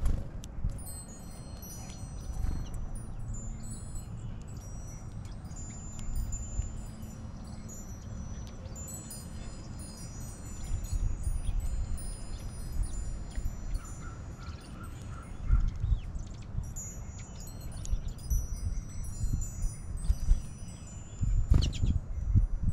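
Small metal wind chimes ringing, many short high notes at different pitches overlapping and dying away, over a low rumble.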